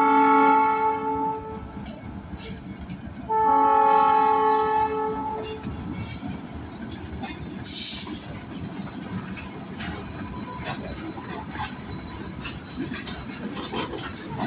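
Freight locomotive's multi-chime air horn sounding two long blasts for a grade crossing, then the train's cars rolling past, wheels clacking and clanking over a rough crossing.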